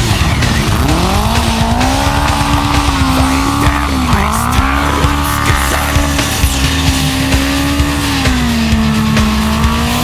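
Motorcycle-and-sidecar engine revving while the rig spins in snow. Its pitch climbs about a second in, dips sharply near the middle and drops again near the end, with rock music playing underneath.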